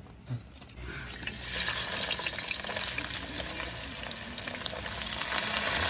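Sliced onions sizzling and crackling as they hit hot coconut oil in a wide metal uruli pan. The sizzle starts about a second in and grows louder.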